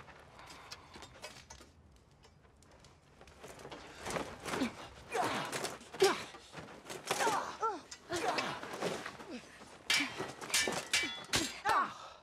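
Steel swords clashing in a sparring fight, with sharp metallic strikes, some ringing briefly, and short grunts and gasps of effort from the fighters. It is quiet at first; the clashes and grunts begin about four seconds in and come thick and fast toward the end.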